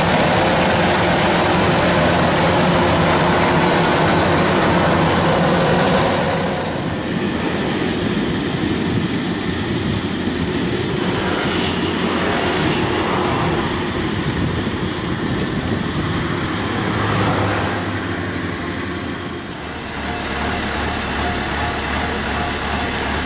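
Kubota DC-93 rice combine harvester running: a steady diesel engine and machinery drone that drops in level about six seconds in and changes note near the end.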